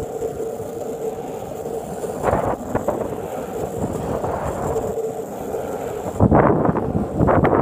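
Longboard wheels rolling over asphalt, a steady rough rumble with a faint hum. About six seconds in it gets much louder as wind buffets the microphone.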